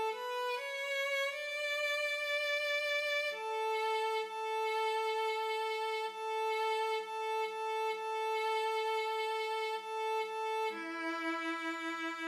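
MuseScore's synthesized playback of the alto line of an a cappella SATB arrangement. A rising run of short notes leads into a long stretch of repeated notes on one pitch, then the line steps down near the end, with the other parts fainter underneath.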